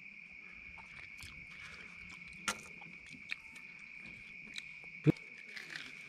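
Steady night chorus of crickets, with scattered small clicks and taps at the table and one sharp knock about five seconds in.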